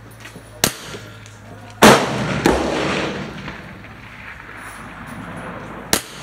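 Rifle shots: a sharp crack shortly before a second in, a much louder shot about two seconds in with a long echoing tail, and another short crack near the end.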